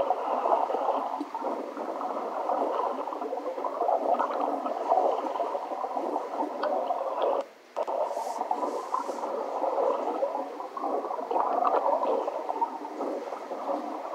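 Muffled rushing and gurgling of water picked up by an underwater camera, played back through small computer speakers, with a thin, boxy sound. It cuts out briefly about seven and a half seconds in.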